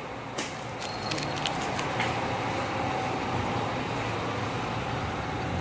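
Wire shopping cart rolling, its wheels and basket rattling steadily over the floor and pavement, with a few sharp clicks.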